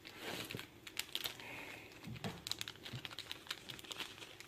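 Irregular light clicks and rustling close to the microphone, several per second, starting as the talk breaks off.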